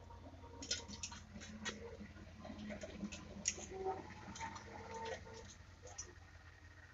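A cat eating, its chewing making a run of small irregular clicks.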